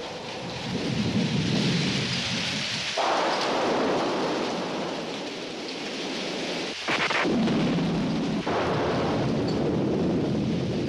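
Rain falling with rumbling thunder, and sudden thunderclaps breaking in about three seconds in and again about seven seconds in.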